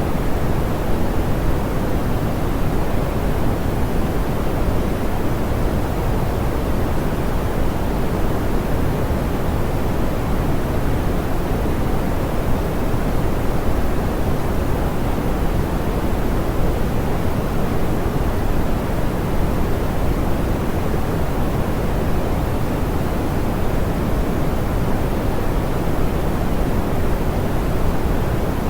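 Steady, soft pink noise with a smooth, even hiss, heavy in the lows and dull in the highs, unchanging throughout.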